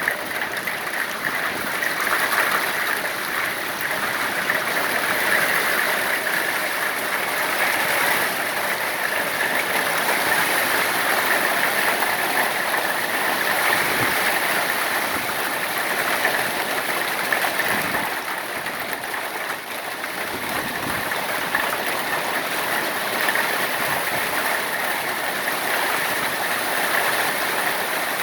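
Hail and rain falling hard in a dense, steady clatter, with a few single louder knocks standing out.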